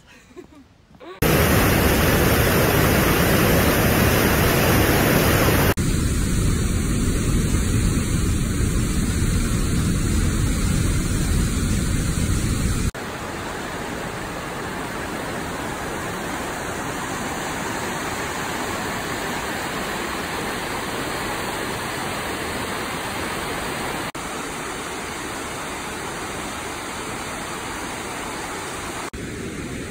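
Rushing water of a fast river in a rocky canyon and of a waterfall: a steady noise that starts about a second in. It is loudest for the first dozen seconds and jumps in level at sudden cuts from one shot to the next.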